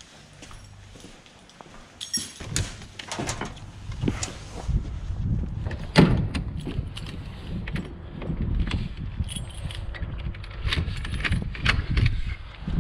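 Keys jangling and a key clicking in the lock of a sectional garage door, with one sharp click about six seconds in, over a steady low rumble from about halfway through.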